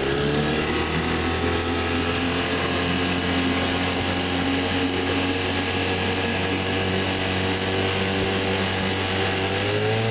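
1967 Johnson JW22C 3 hp two-stroke outboard motor running steadily, pushing the boat along. About nine and a half seconds in its pitch rises as it is throttled up.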